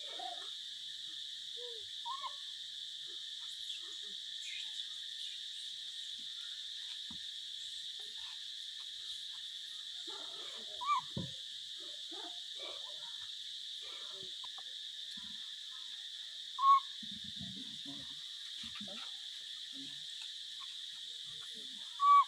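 Steady high-pitched insect drone throughout, with a few short, high animal calls on top; the loudest come about halfway, near the three-quarter mark and at the very end. Faint scuffles and rustles between them.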